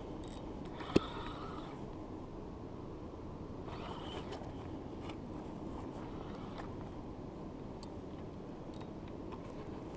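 Steady low background noise, with a single sharp click about a second in and a few faint brief rustles.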